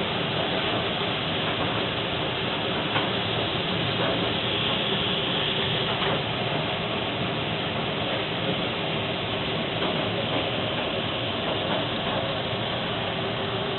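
Rain mixed with hail pouring down: a steady hiss with scattered sharp ticks of hailstones striking.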